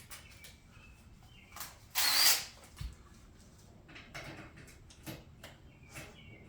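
Light clicks and clatter of hand tools being handled while working on an ATV's plastic body panels, with a short rasping burst about two seconds in.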